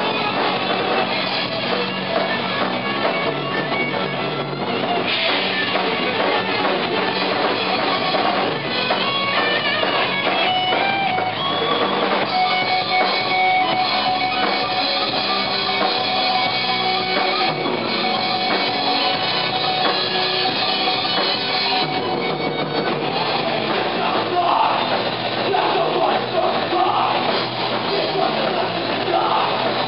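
Thrash metal band playing live: distorted electric guitars over a pounding drum kit, with long held notes from about twelve seconds in to about twenty-two.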